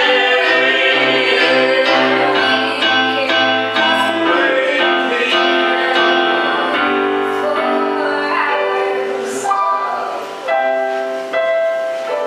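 A group of voices singing an improvised song in held, changing chords, accompanied by an electric keyboard.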